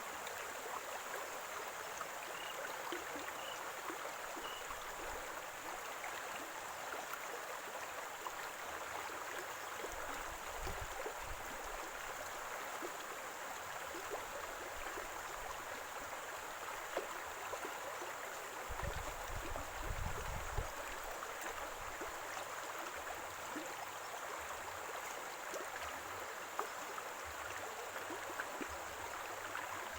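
Running water of a small stream gurgling steadily, with a couple of brief low rumbles partway through.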